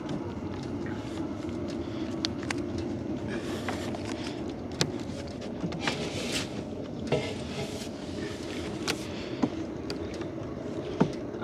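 Small boat's engine running steadily, with scattered clicks and knocks.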